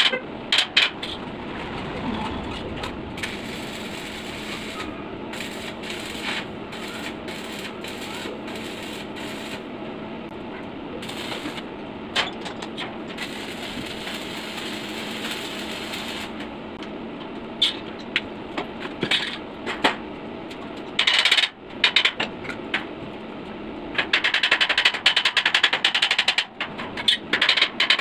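Electric arc welding on a steel frame: the arc crackles and sizzles in several stretches, the longest near the end, with sharp metallic clicks and taps between the welds.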